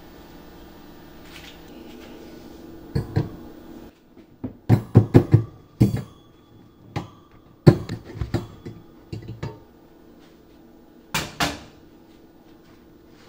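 Clanks and knocks of a metal loaf pan being turned upside down and knocked against a wire cooling rack to release a baked loaf. The knocks come in clusters, with the loudest about eight seconds in.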